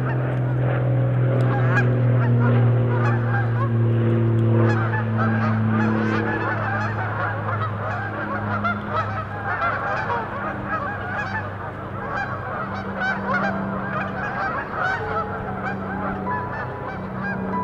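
A large flock of Canada geese honking in a dense, unbroken clamour. Under it runs the engine drone of a single-engine propeller plane passing over, falling in pitch over the first several seconds.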